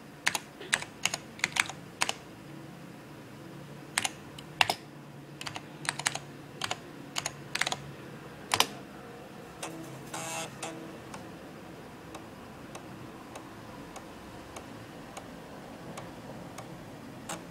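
Typing on an IBM PC Convertible's keyboard: two quick runs of key clicks as a DOS command is entered. About ten seconds in comes a short buzzing burst, then faint, evenly spaced ticks from the 3.5-inch floppy drive reading the program.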